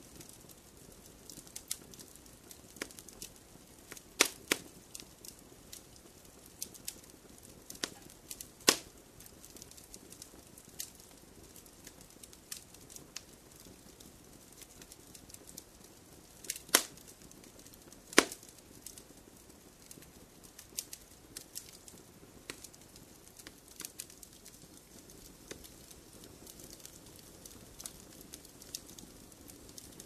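Fireplace fire crackling: scattered sharp snaps and pops over a faint hiss, with a handful of louder pops about four, nine, seventeen and eighteen seconds in.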